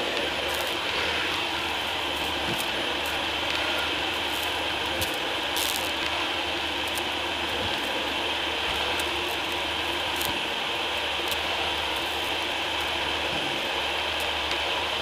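Dyson DC40 upright vacuum cleaner running steadily while pushed over a thick shag rug, a constant whine and rush of air, with scattered sharp ticks and crackles of debris being sucked up.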